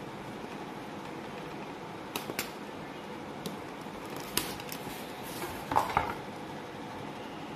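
Utility knife blade cutting along a thin wooden sheet, a few sharp clicks and scrapes, then a louder clatter about six seconds in as the sheet is lifted and turned on the mat. A steady hum runs underneath.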